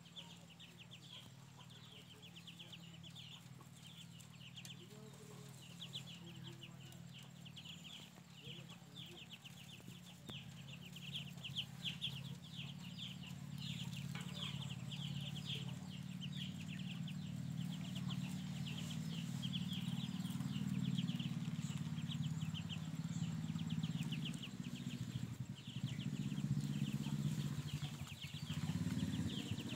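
A brood of serati (Muscovy-cross) ducklings peeping without pause, many short high cheeps overlapping. Under them a low rumble grows steadily louder through the second half.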